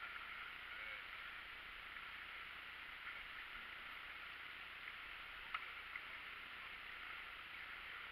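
Inflatable raft being paddled on a calm river: a faint, steady water hiss with a few light knocks, a sharper one about five and a half seconds in.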